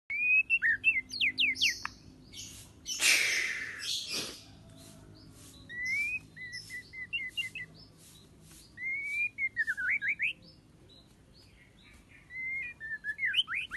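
White-rumped shama (murai batu) singing: bursts of whistled phrases made of quick rising and falling notes, separated by pauses and short clicks, with a harsh noisy note about three seconds in.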